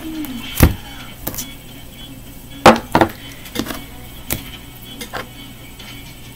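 A deck of cards being handled and shuffled, giving about seven irregular sharp taps and knocks, as of the deck striking a tabletop, over a faint steady hum.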